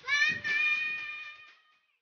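A young girl's long, high-pitched drawn-out wail that rises at the start, is held, and fades away near the end.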